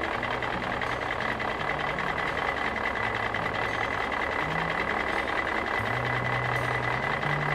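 Cartoon vehicle engine sound effect: a steady running engine with a noisy hum, a constant high whine and a low drone that shifts between a few pitches.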